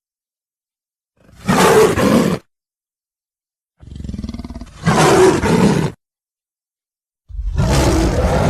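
Tyrannosaurus rex roar sound effects: three separate roars, each one to two seconds long, with dead silence between them. The second opens with a quieter growl before the full roar, and the third starts near the end.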